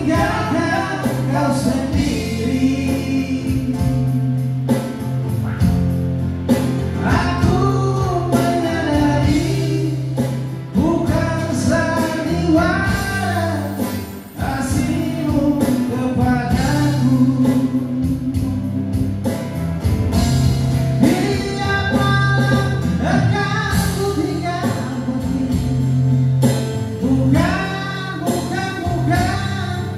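Live band performance: male voices singing a song into microphones over acoustic guitar and keyboard accompaniment, with a brief pause in the vocal line about halfway through.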